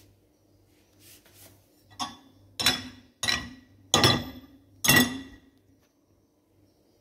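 Dishes clinking against each other and the rack as they are set into a dishwasher: about five sharp clinks over three seconds, each ringing briefly.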